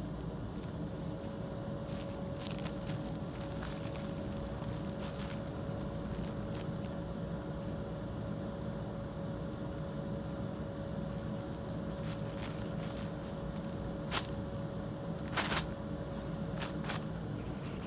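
Cats rustling and crinkling a thin printed sheet as they paw and crawl under it on carpet, with scattered soft crackles and two sharper crackles near the end, over a steady low hum.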